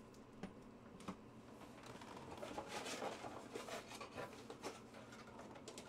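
Crinkling and rustling of trading-card packs and cards being handled on a desk, with two light clicks before it.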